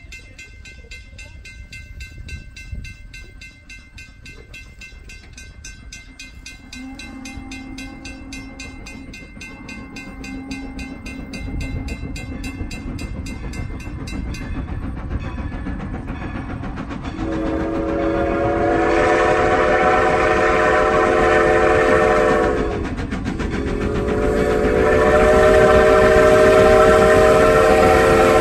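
Steam locomotive (ex Great Western 2-10-0 No. 90) approaching, its running noise growing louder, then its steam whistle blowing two long blasts with a brief break between them, starting a little past halfway.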